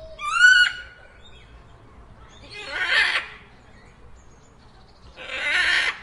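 Macaw calling with three harsh squawks. The first and loudest comes right at the start and rises in pitch. The other two are raspier screeches about three and five and a half seconds in.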